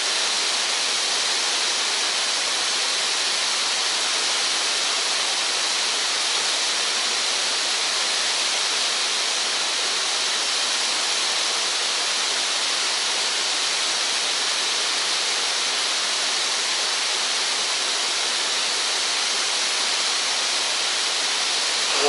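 Steady rushing of a waterfall cascading down stepped rock ledges into a pool.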